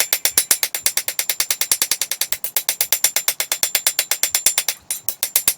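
Rapid, evenly spaced hammer blows on a steel knife blade being forged from a coil spring, about ten a second, with a brief pause near the end.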